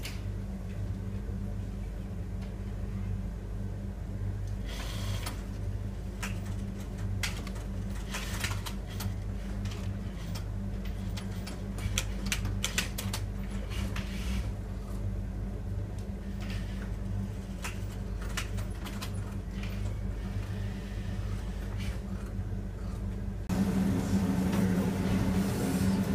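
Workroom of Juki industrial sewing machines: steady motor hum with scattered clicks and rattles from the machines at work. About 23 seconds in, it switches suddenly to a louder steady hum and rush at the steam pressing table.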